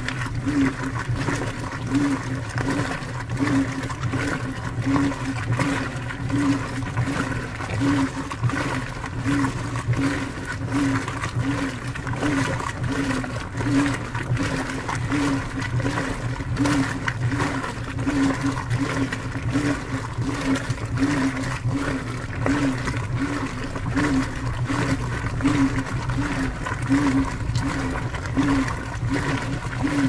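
Brastemp Vantage top-load HE washing machine agitating its load: the wash motor hums in a steady back-and-forth rhythm of pulses while water and clothes slosh in the drum.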